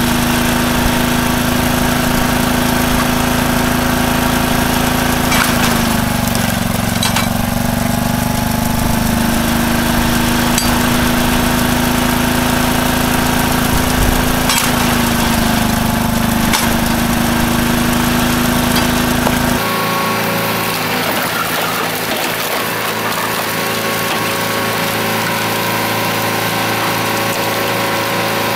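Small 8 HP single-cylinder gas engine on a homemade log splitter running steadily. Its note sags twice under load as logs are split, with a few sharp cracks. About twenty seconds in, the sound cuts to the steadier, higher engine hum of a large log-splitting machine.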